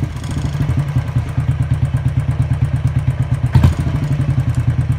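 Royal Enfield Thunderbird's air-cooled single-cylinder engine idling just after starting, with a fast, even beat of firing pulses. There is one louder knock about three and a half seconds in.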